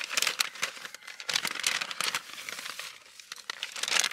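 Cookie packaging being opened and handled: dense, irregular crinkling and rustling, with short pauses about one second and three seconds in.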